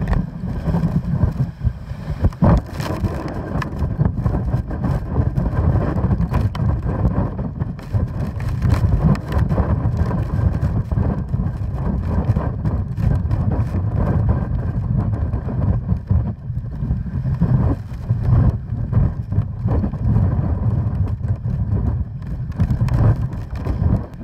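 Hurricane-force wind buffeting the microphone: a heavy, gusting rumble that surges and dips without a break.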